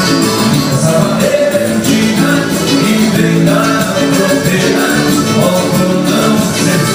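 A band playing upbeat Latin American-style music with singing and a tambourine keeping the rhythm.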